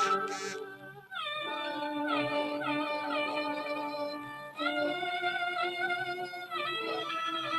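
Cantonese opera-style music playing through a just-repaired Telefunken valve set (single ECL86 output tube, selenium rectifier) on a test play: held melodic notes with sliding changes of pitch between them.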